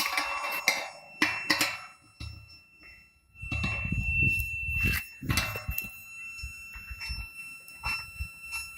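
A steady high-pitched electronic tone runs throughout, with scattered clicks and knocks from handling equipment and a low rumble in the middle.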